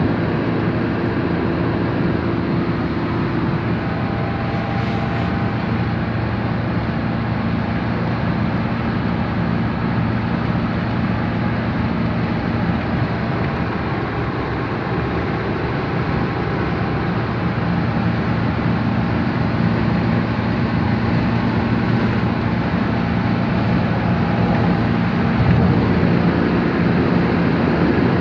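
Car driving at a steady speed: continuous engine hum and road noise that stays even throughout.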